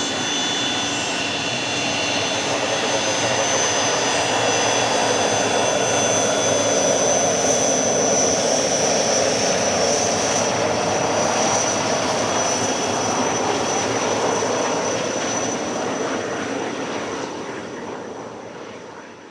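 Business jet's turbofan engines passing by: a steady roar with a high turbine whine, swelling about halfway through, then fading and cutting off abruptly at the end.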